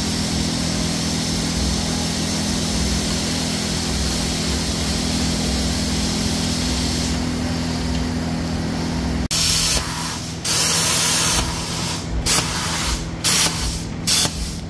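Metal-cutting torch hissing in short on-off bursts as it cuts a factory suspension bracket off the Jeep JL's steel frame rail, after a steady droning hum of shop machinery that stops abruptly about nine seconds in.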